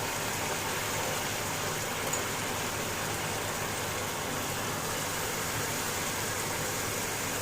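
Steady sizzling of a milk-based masala gravy cooking in a pan.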